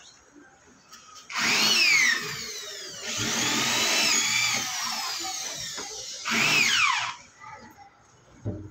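Handheld electric drill running in three bursts, a short one, a long one and another short one, drilling into the PVC borewell pipe at its joint; its pitch slides up and down as the motor speeds up and slows under load. A short knock near the end.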